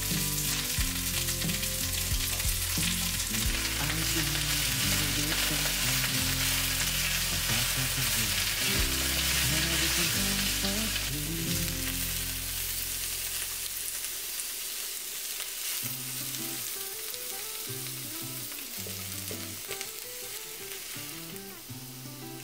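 Sliced vegetables sizzling in hot oil in a non-stick wok as they are stir-fried with a spatula. The sizzle is strongest in the first half and dies down gradually through the second half.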